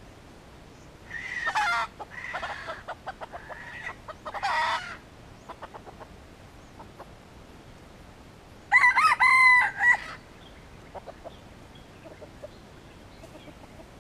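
Red junglefowl rooster crowing twice: a first crow in several broken parts about a second in, then a louder, shorter crow about nine seconds in. Faint ticks and rustles in the dry leaf litter come between the two crows.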